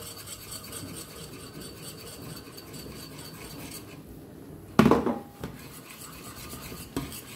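A wire whisk scraping and stirring in a stainless steel pot as flour is worked into hot milk and butter for choux pastry, the mix thickening into a stiff dough. A single loud metallic clack about five seconds in, with a short ring, and a lighter click near the end.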